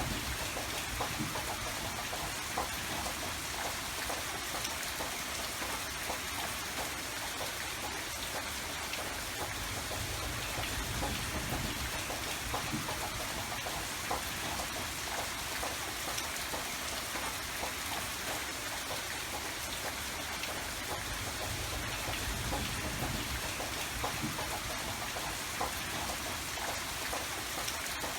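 Steady rain falling: a dense, even hiss made of countless small drop impacts, with a low rumble underneath.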